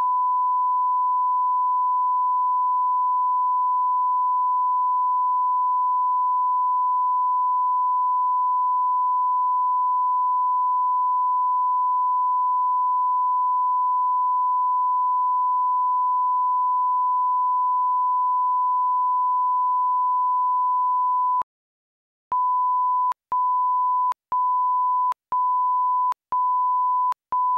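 Broadcast line-up tone: a steady, pure test tone played with colour bars, cutting off about twenty-one seconds in. After a pause of about a second, countdown-leader beeps at the same pitch follow, six of them, about once a second.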